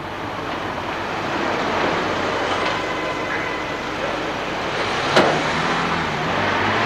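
A BMW 5 Series saloon driving up and stopping amid steady street traffic noise, with one sharp click about five seconds in.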